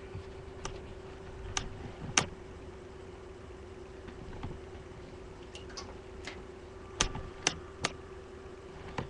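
Freshly cleaned desktop computer running with one steady hum from its fans and power supply, while sharp clicks and light knocks come at scattered moments, a few of them close together near the end, as the case is handled and turned.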